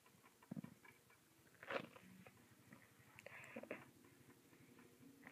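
Near silence: room tone with a few faint, short clicks and small handling or mouth noises close to the phone's microphone.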